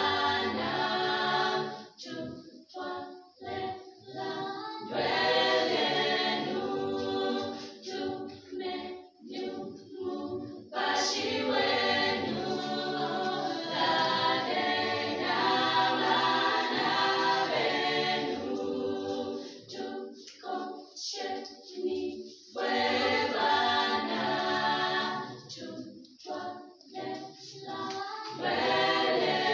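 A mixed choir of men's and women's voices singing without instruments, in harmony. Long held chords alternate with short, clipped phrases.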